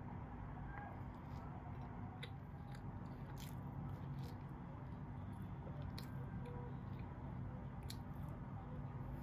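Faint close-up chewing and mouth sounds from eating, with soft irregular clicks over a low steady room hum.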